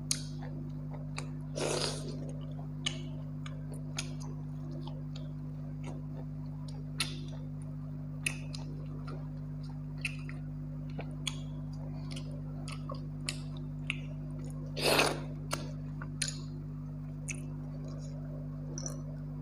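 Close-up eating sounds of rice and mutton curry eaten by hand: scattered wet mouth smacks and clicks of chewing, with two longer, louder wet sounds about two seconds in and near fifteen seconds, over a steady low hum.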